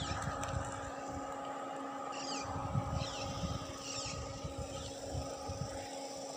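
A steady motor-like hum with wind gusting on the microphone, and a few short, high, falling chirps.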